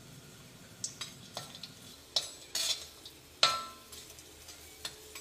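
Metal ladle clinking and scraping against an iron kadai as a lump of asafoetida fries in a little hot oil, with a faint sizzle. Several short knocks, the loudest about three and a half seconds in, ringing briefly.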